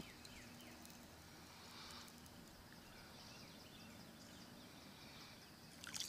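Near silence: faint outdoor lake ambience, with a few quick falling bird chirps in the first half second. Near the end a hooked fish starts splashing at the surface.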